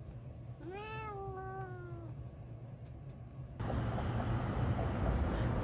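A cat meowing once, one drawn-out meow that rises then slowly falls in pitch. Near the end it cuts abruptly to a loud, steady rushing noise.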